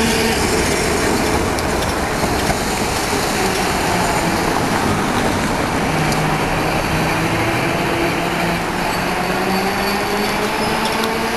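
Milan ATM class 1500 Peter Witt tram running past on street rails and pulling away: a steady rumble of wheels on track with a low hum that slides slowly in pitch, over city street noise.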